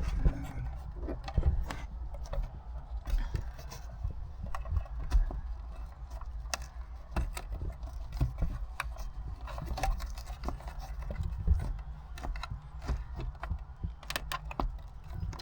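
Plastic interior trim and parts being handled and fitted during a dash cam install: scattered clicks, taps and scrapes.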